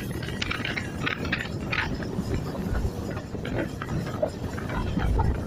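Moving passenger train heard from its coach: a steady rumble of wheels on the rails with irregular metallic clanking and rattling.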